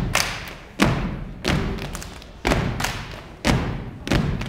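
A step team stomping in unison on a wooden stage floor: about six loud stomps at uneven spacing, with lighter hits between them.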